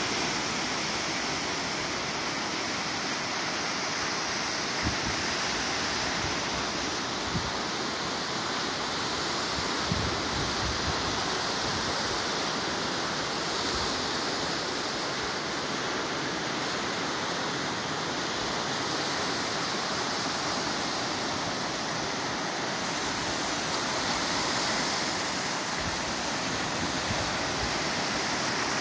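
Steady rushing wash of small Lake Michigan waves breaking on the beach, with a few brief low thumps of wind on the microphone.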